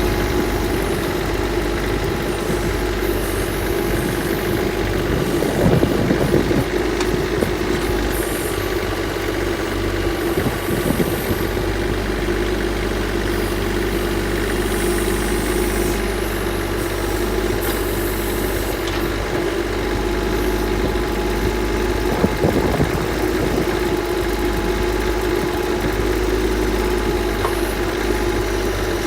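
Mahindra eMax compact tractor's diesel engine running steadily with a backhoe attached, with short louder, rougher moments about 6, 11 and 22 seconds in.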